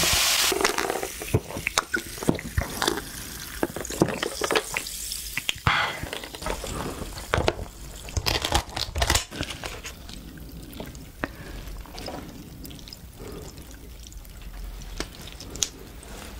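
Close-miked sounds of a cooked king crab being taken apart: scissors snipping through the spiny leg shell with sharp cracks and clicks, and wet sounds as the meat is pulled out.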